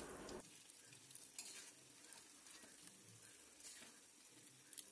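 Faint sizzling of boiled noodles and vegetables stir-frying in a wok, with a few light scrapes of the spatula.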